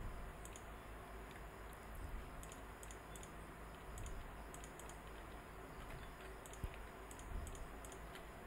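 Faint, irregular light clicks of a computer mouse and keyboard, from shift-clicking to place vertices.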